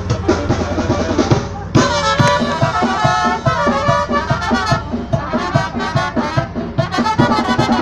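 Band music with a steady drum beat; a melody comes in about two seconds in.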